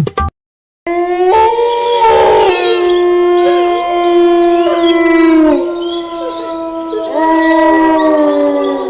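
Canine howling, several long drawn-out howls overlapping, each held steady and then sliding down or up in pitch. It starts about a second in, after a short gap of silence.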